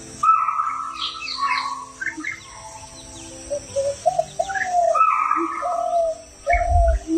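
Several birds calling at once, with short whistled and chirping notes at different pitches overlapping throughout. A brief low rumble comes in near the end.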